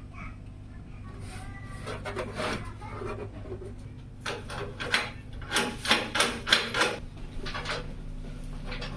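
Handling noises from PC case parts being worked on: soft rubbing and scraping, then about halfway through a quick run of sharp clicks and taps, over a steady low hum.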